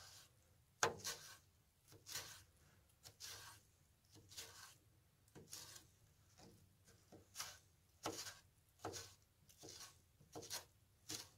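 Kitchen knife cutting and dicing a tomato on a plastic cutting board: quiet, separate knocks of the blade meeting the board, unhurried, roughly one or two a second.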